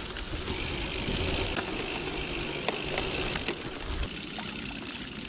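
Merida Silex gravel bike riding over wet, muddy, rocky ground: a steady hiss of tyres through mud and water, with scattered clicks and rattles from the bike.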